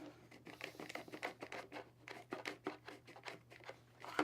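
Smaller DeWalt DWHT83196 trigger bar clamp being worked onto a piece of wood: a run of light, irregular clicks and rattles, several a second, as the trigger handle is pumped to drive the jaw tight.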